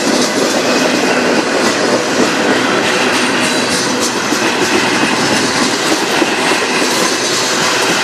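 Freight cars of a manifest train rolling past close by: steady, loud noise of steel wheels on the rails, with scattered clacks as the wheels cross rail joints.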